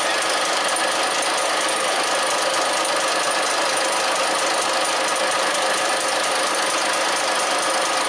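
Komatsu six-cylinder turbo diesel running steadily in the boat's engine room, an engine that has just been rebuilt.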